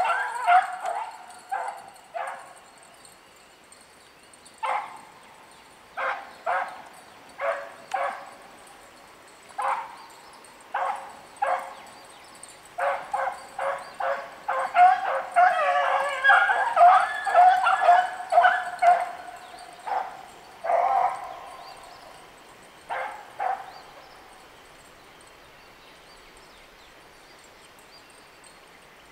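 A pack of beagles baying while trailing a rabbit: single bays spaced a second or more apart, building into an overlapping chorus of several dogs about halfway through, then stopping.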